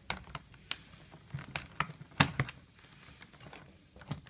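Sharp plastic clicks and snaps, about ten of them at irregular spacing with the loudest just past two seconds in, as a Syma X5C drone is pried out of its moulded plastic packaging tray.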